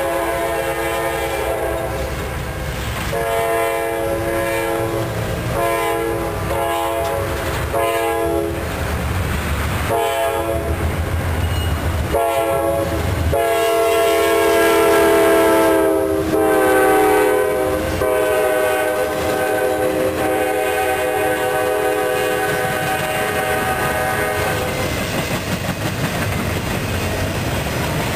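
Norfolk Southern diesel locomotive's horn sounding a series of blasts as the intermodal train approaches, then one long blast whose pitch drops as the locomotive passes. After the horn stops, near the end, the train's wheels clatter and rumble on the rails as trailer-laden flatcars roll by.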